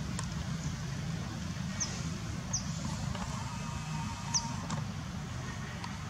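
Outdoor background noise: a steady low rumble with a few short, high chirps that fall in pitch, scattered through it.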